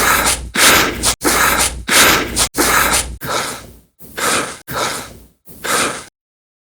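A quick succession of about nine short, breathy human breath sounds, gasps and exhalations, each cut off abruptly before the next. Silence follows near the end.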